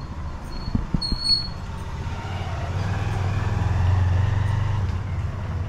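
A passing motor vehicle's engine: a low rumble that builds to its loudest about four seconds in, then eases off. A few light knocks sound about a second in.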